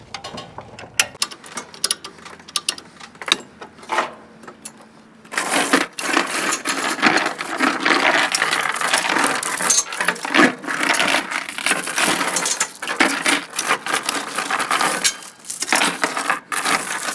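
Ratchet chain binder clicking as it is cranked to tighten a tie-down chain, then steel chain links clattering and clinking loudly as the slack chain is handled, from about five seconds in.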